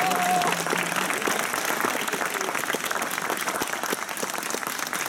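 Audience applauding steadily, with the band's last held notes ending within the first second.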